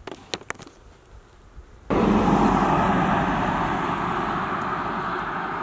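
A few faint clicks, then from about two seconds in a loud, steady rushing of a motor vehicle on the road, slowly easing away.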